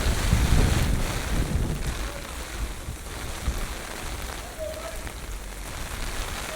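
Typhoon rain falling steadily, with strong wind gusts buffeting the microphone for the first couple of seconds before easing.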